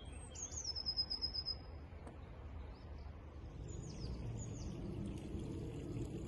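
Small songbirds singing: a song phrase that drops in pitch into a quick trill about half a second in, then a few short chirps about four seconds in. A low background rumble grows toward the end.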